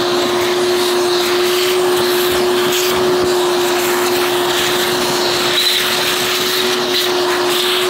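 Shop vacuum running steadily with a constant whine and rushing air, its hose nozzle sucking corroded, salt-crusted debris out from between the cells of a flood-damaged hybrid battery pack.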